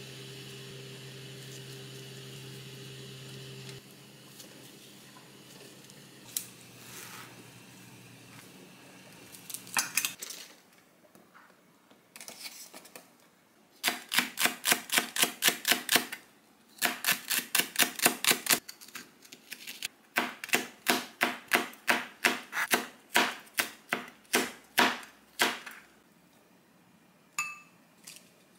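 Kitchen knife slicing green onion and chili peppers on a cutting board: quick rhythmic knife taps in three runs, the last run slower.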